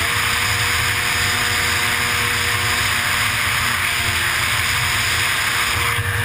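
Racing runabout jet ski running flat out, heard from on board: a steady loud rush of wind and water spray over the engine's faint steady drone.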